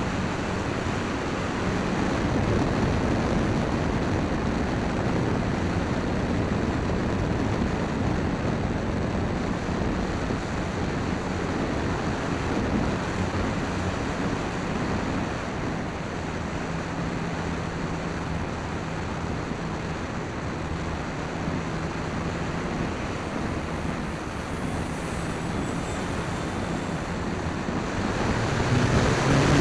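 Steady wind rush on the onboard camera of a Dynam Waco electric RC biplane in flight, with the low hum of its motor and propeller underneath. Near the end the propeller drone grows louder.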